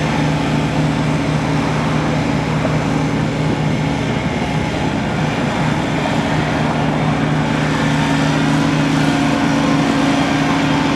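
Kubota BX23S tractor's three-cylinder diesel engine running steadily.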